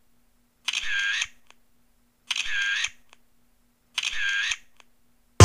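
Camera shutter sound, three times about a second and a half apart, each a short snap followed by a faint click.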